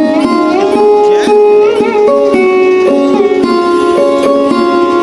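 Background instrumental music: a plucked string melody in a sitar-like style, with notes that bend between pitches.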